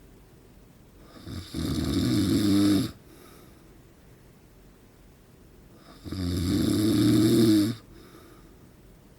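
A man in his forties snoring in his sleep: two loud, low-pitched snores about four and a half seconds apart, each lasting about a second and a half, with quiet stretches between them.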